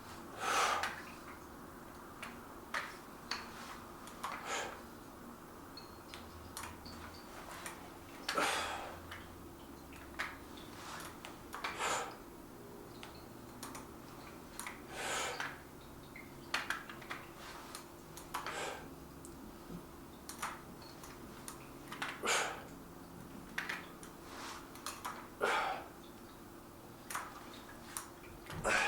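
Light clicks and knocks at irregular intervals while a set of dumbbell curls is done. A few longer, noisy puffs come about every seven seconds, over a faint steady hum.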